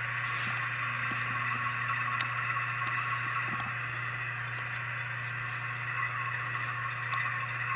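The Tsunami sound decoder in an Atlas U23B model locomotive playing a GE diesel engine sound through its small onboard speaker, running steadily with a constant hum, with a few light clicks.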